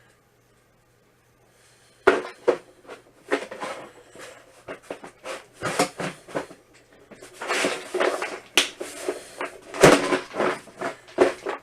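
Near silence, then from about two seconds in a busy run of clicks, taps and rustles: small plastic parts and paper being handled while a broken grinder shield part is glued.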